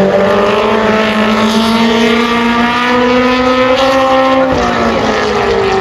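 Stadium stock race car engine on a solo qualifying lap, rising steadily in pitch under acceleration for about four and a half seconds, then dropping as the driver lifts off.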